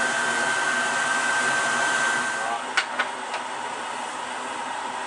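Steady rushing kitchen noise with a thin high whine, dropping a little about two and a half seconds in. Right after, a ladle clicks sharply against the pot twice, then once more faintly.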